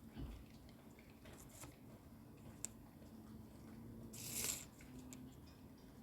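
Faint handling of plastic magnetic letters: a soft thump at the start, a few light clicks, and a short rustling scrape about four seconds in.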